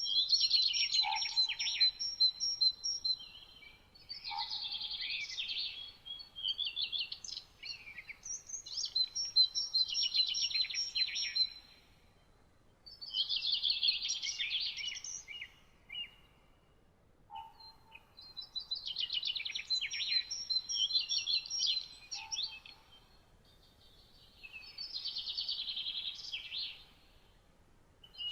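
Songbird singing: phrases of rapid high trills mixed with thin sustained whistles, about six phrases of two to four seconds each with short quiet pauses between them.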